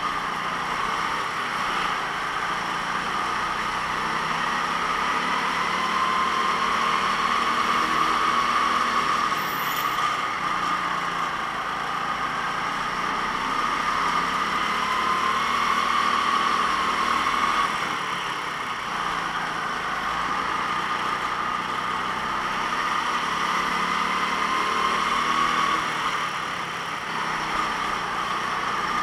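Kart engine running under load, its pitch rising and falling in long sweeps every several seconds as it speeds up and slows down, with short drops in level about two-thirds of the way through and near the end.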